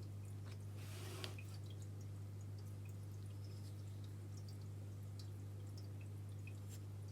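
Steady low electrical hum, with faint scattered small ticks and a brief soft rustle about a second in, from quiet handling of a gold-plated Cartier lighter.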